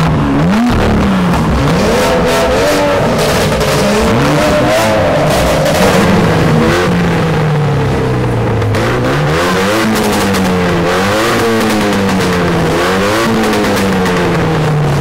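Modified performance car with a loud exhaust, revved repeatedly while standing still: the engine note climbs and falls again and again with no break.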